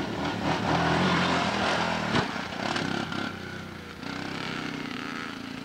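Quad bike engine running as it is ridden close past and then away, the pitch rising and falling with the throttle, with a sharp knock about two seconds in. From about four seconds in the engine settles to a steadier, quieter note.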